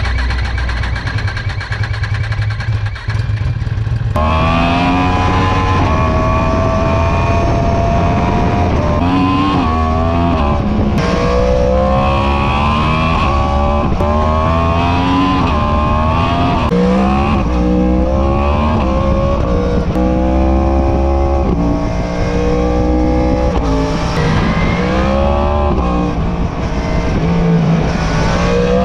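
Yamaha R1 (2020) crossplane inline-four on its stock exhaust idling steadily, then pulling away about four seconds in. It accelerates hard through the gears, the engine note climbing and dropping back at each shift.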